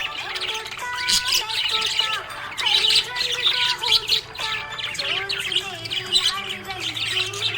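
Budgerigar chirping and warbling in a rapid, unbroken stream of chirps, trills and squawks.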